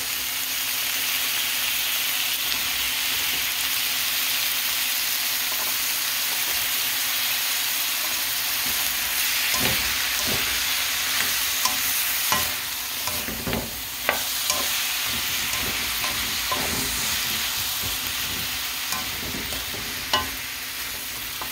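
Stir-fried vegetables sizzling steadily in a hot oiled pan just after green beans soaked in water go in. A plastic slotted spatula scrapes and taps against the pan as they are tossed, mostly in the middle of the stretch.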